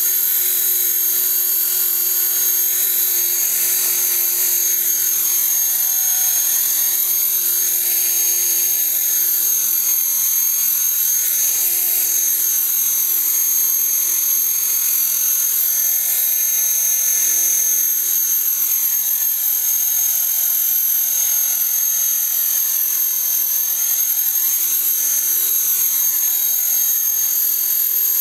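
Electric T-Rex 450 Pro RC helicopter with a five-bladed main rotor head running and hovering low: a steady high-pitched whine from the motor and drivetrain over the rotor blades' rush. Throughout, the tone of the rotor noise sweeps slowly up and down as the helicopter shifts height and position.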